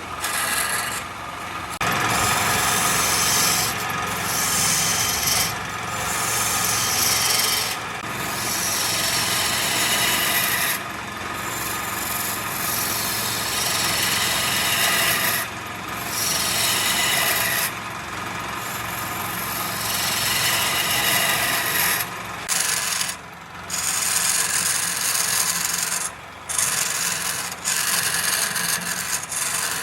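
Wood turning on a lathe while a tool works it, a steady scraping hiss broken by brief gaps every few seconds.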